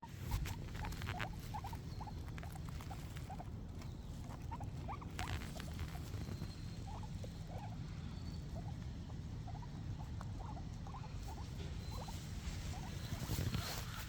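Guinea pigs munching grass: a continuous stream of many small, quick chewing and nibbling sounds.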